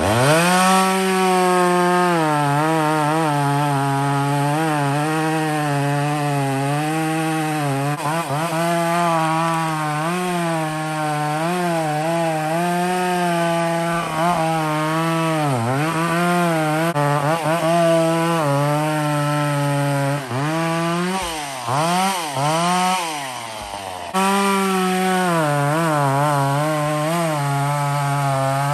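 Two-stroke chainsaw running at high revs and cutting wood, its engine note wavering as the chain loads and unloads. About twenty seconds in it dips and quietens for a few seconds, then picks up to full speed again.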